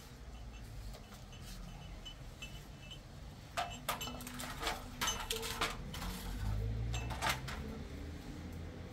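Kitchenware being handled: a few sharp knocks and clinks of dishes or utensils, mostly in the second half, over a low steady rumble.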